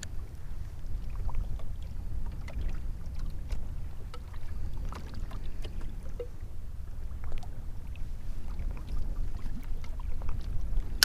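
Water lapping against a fishing kayak's hull, over a steady low rumble, with scattered small knocks and ticks.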